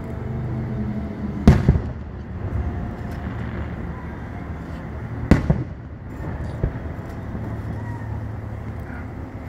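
Two fireworks bangs about four seconds apart, each followed by a short crackle or echo, over a steady low hum.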